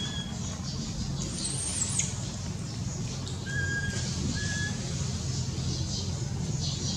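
A few short, high whistled animal calls, each a steady note under half a second long, one near the start and two more about halfway through, with a brief higher sliding call in between, over a steady low outdoor rumble.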